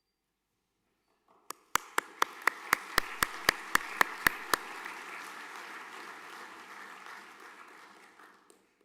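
Audience applauding. For the first few seconds one set of hands claps loudly and close, about four claps a second. The applause dies away near the end.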